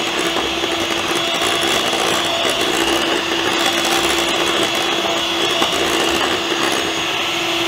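Imarflex electric hand mixer running at a steady speed, its twin wire beaters whirring through creamed butter and egg whites in a glass bowl, with a constant motor tone. It switches off at the very end.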